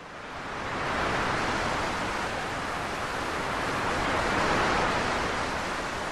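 Sea surf rushing and foaming on the shore, a steady rush of breaking waves that fades in over the first second and swells around the middle.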